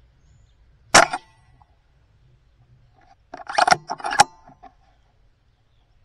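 A single shot from a .22 Brocock Sniper XR Magnum pre-charged pneumatic air rifle, a sharp crack about a second in, followed from about three and a half seconds in by a cluster of clicks and clatter.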